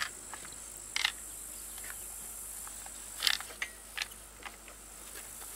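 A stripped-down Chinese chainsaw body being turned over and shaken to get out something that was dropped inside it: a few short plastic-and-metal clicks and rattles, about one second in and in a cluster a little after three seconds. Behind them, a steady high chirring of insects.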